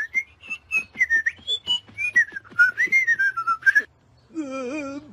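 A whistled tune that wanders up and down in pitch, over quick light taps at about four a second, like cartoon footsteps. The whistling stops about a second before the end, and a low, wavering, held voice begins.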